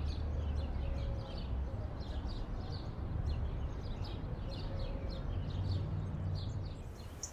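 Small birds chirping over and over, short high chirps, over a low steady rumble; the sound cuts off suddenly near the end.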